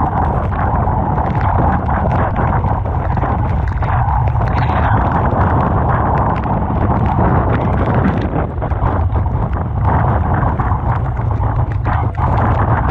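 Typhoon wind buffeting the microphone in a steady, heavy rumble, over the constant rush of rough sea and breaking waves.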